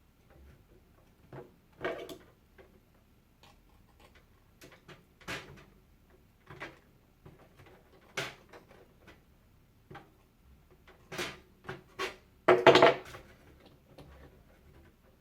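Irregular clicks, knocks and clatter of hands handling PC water-cooling parts and tools, with the loudest clatter about 12 to 13 seconds in.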